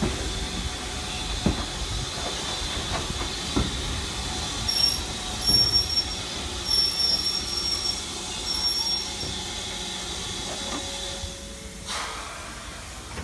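Steam-hauled passenger train rolling slowly on curved track, heard from a carriage window, with a steady hiss of steam. From about five to nine seconds the wheels squeal high in short stretches on the curve, and there are a few knocks from the running gear.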